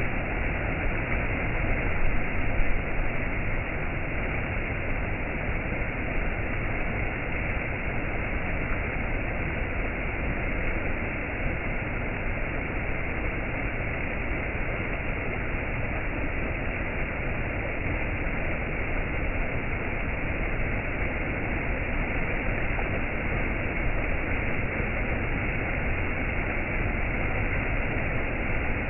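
Waterfall's steady rush of falling water, an even hiss that swells slightly about two seconds in and otherwise never changes.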